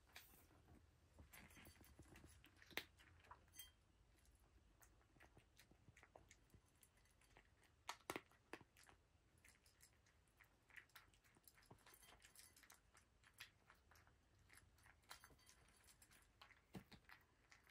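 A cat crunching dry kibble: faint, irregular crunches and clicks, with a few sharper clicks among them.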